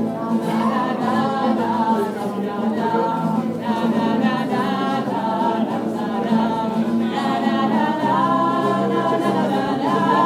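Live band performing, with several voices singing together over a steady low held note.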